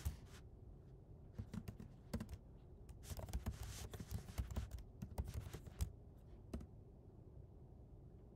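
Typing on a computer keyboard: irregular keystrokes in short runs, the densest run about three to four seconds in.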